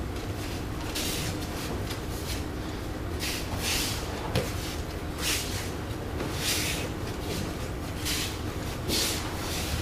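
Aikido practice on a mat: cotton training uniforms (gi and hakama) swishing and bare feet sliding, heard as a series of short swishes. There is one sharp slap about four and a half seconds in, and a steady low hum throughout.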